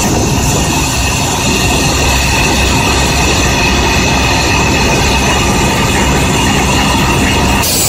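Excavator-mounted FINE Breaker EX-Drill 300 hydraulic rock drill hammering its drill rod down into rock, a loud continuous rapid hammering. The sound changes abruptly near the end.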